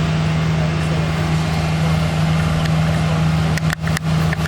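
The 28 HP Kubota water-cooled diesel engine of an Alkota 3000 PSI hot-water pressure washer trailer running steadily with a constant hum, under the hiss of high-pressure water spraying from a surface cleaner onto concrete. The sound dips briefly twice near the end.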